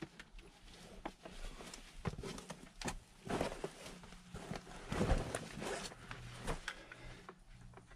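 A climber's hands and rubber climbing shoes scuffing and scraping on an overhanging rock roof while bouldering: a string of short brushing and rubbing sounds, louder about three seconds in and again about five seconds in.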